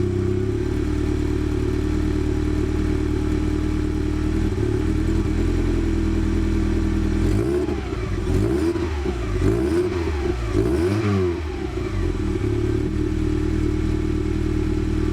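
Toyota MR2 engine idling just after start-up, still on its stock air intake, then revved up and down several times in quick blips from about seven to eleven seconds in before settling back to idle.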